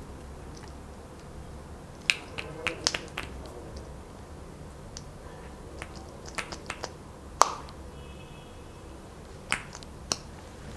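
Scattered sharp plastic clicks and taps as a small liquid lipstick tube is handled and its cap and applicator wand are worked open, about a dozen clicks with the loudest one about seven seconds in.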